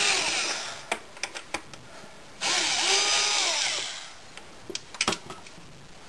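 Power drill-driver driving screws, running in two bursts of about a second and a half each, its motor pitch rising and falling, with a few light clicks between them.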